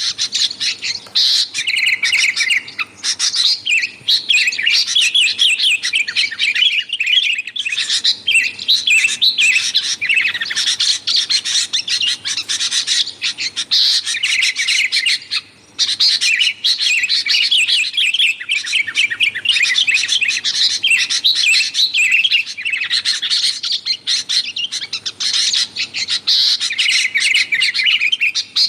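Sooty-headed bulbuls (kutilang) chattering busily: a dense, unbroken run of rapid chirps and short whistled phrases, with a brief pause about fifteen seconds in. This is a lure call for drawing in wild bulbuls.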